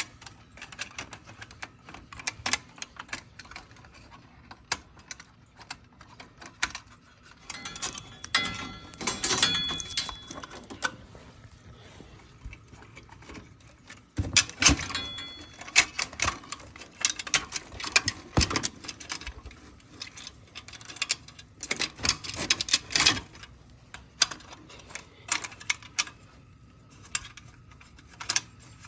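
Irregular clicks, clinks and rattles of small metal tools and parts being handled, with busier clusters about a third of the way in, around the middle and again later on.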